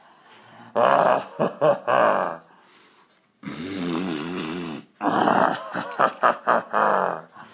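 A man's wordless vocal sounds in three loud stretches, the middle one a long wavering held note.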